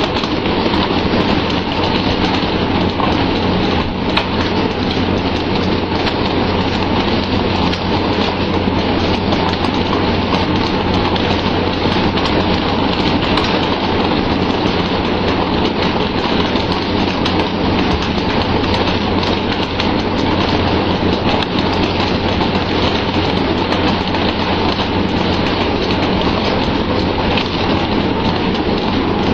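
Steady loud rushing hiss of water spraying and splashing like heavy rain, from the deck sprayers that live-bait albacore boats run over the sea surface, with a low steady hum of the boat's engine beneath.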